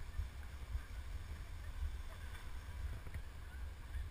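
Wind buffeting the microphone of a camera worn while skiing downhill, a low uneven rumble, with a faint hiss of skis sliding over snow.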